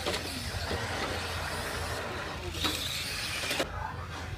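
Radio-controlled touring cars running on an asphalt track: a steady hiss of motors and tyres that grows louder for about a second near the end, then cuts off suddenly.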